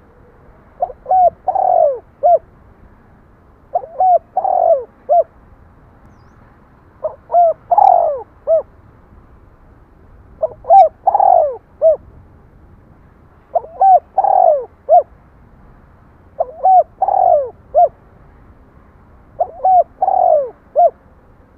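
Spotted dove cooing: the same phrase repeated seven times, about every three seconds, each a couple of quick short notes, a longer falling coo, then a short final note.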